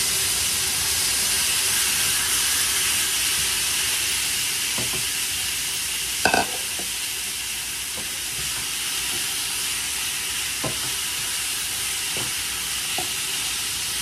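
Raw chicken pieces with sliced onion and tomato sizzling steadily in a hot frying pan, just after going in. A few light knocks of a wooden spatula against the pan as the chicken is stirred, the sharpest about six seconds in.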